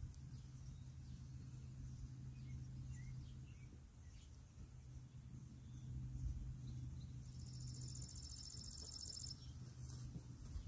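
Quiet outdoor ambience: a steady low hum and faint scattered bird chirps, with an insect trilling rapidly for about two seconds in the second half.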